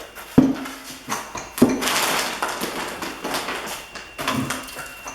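Unboxing handling noise: two sharp knocks about half a second and a second and a half in, followed by rustling of packaging and lighter clatter as parts are lifted out of a cardboard box.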